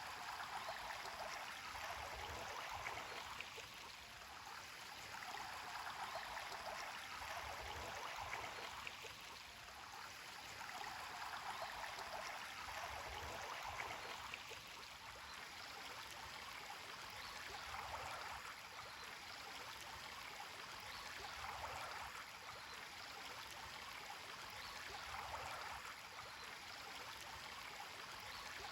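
Running water flowing steadily, a continuous rushing and gurgling that swells and eases every few seconds.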